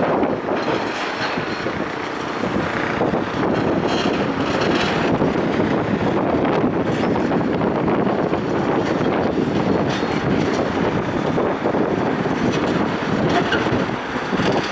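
Wind blowing over the microphone: a steady, loud rushing, with a few faint knocks here and there.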